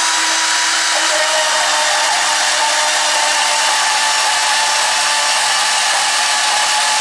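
Milwaukee M12 cordless mini band saw running steadily as its brand-new 18-tooth-per-inch blade cuts through threaded rod held in a vise: a steady motor whine with the hiss of the blade in the metal.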